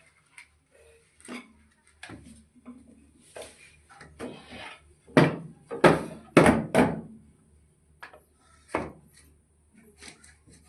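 Knocks and clatter of wooden pieces being worked, with a quick run of four loud knocks about five to seven seconds in and one more a couple of seconds later.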